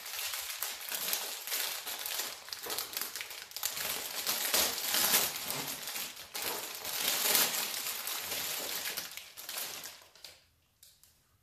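Plastic wrapping crinkling and rustling as a jersey is taken out of its packaging. It stops about ten seconds in.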